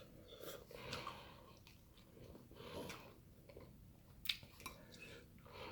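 A person chewing food close to the microphone, with soft wet mouth sounds and two short sharp clicks about four and a half seconds in.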